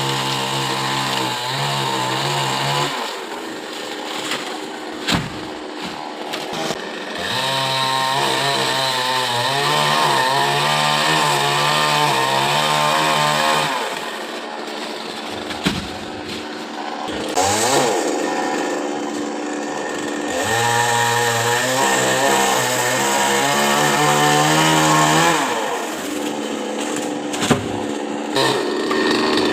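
Chainsaw cutting a coconut tree: the engine is held at high, wavering revs under load in three long spells of several seconds each, dropping back toward idle between them, with one short rev in the middle.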